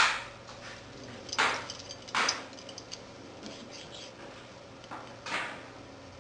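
Small metal bike-rack fittings being handled as a nut is fitted onto a rack mounting rod: four short clinks and scrapes, one right at the start, two about a second and a half and two seconds in, and one near the end.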